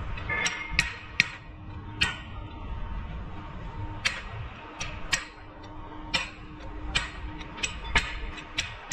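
Hand tools clicking and tapping against metal parts during suspension work: about a dozen sharp clicks at irregular intervals, over a faint steady hum.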